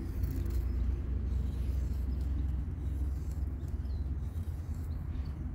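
A Kubey 269 knife blade shaving a eucalyptus stick to feather it, heard only as a few faint scrapes under a steady low rumble.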